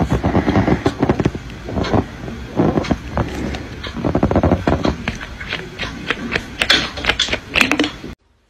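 Cat's claws scratching and scrabbling on a corrugated cardboard scratcher: a rough run of repeated scraping strokes and clicks that stops abruptly near the end.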